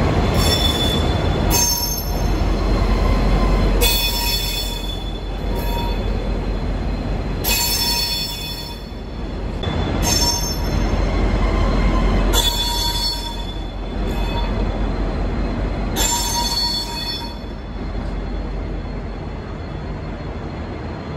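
Train hauled by diesel locomotives A66 and N464 rolling slowly along a platform: a low steady diesel rumble, with the wheels squealing in short high-pitched bursts about every two to three seconds.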